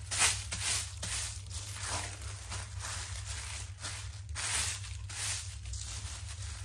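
Thin plastic carrier bag crinkling and rustling in irregular swishes as hands smooth it flat and fold it lengthwise, over a low steady hum.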